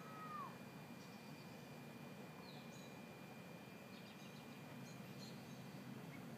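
Faint evening outdoor ambience: a single short mewing call right at the start that rises and then falls, then scattered faint high chirps over a steady low hiss.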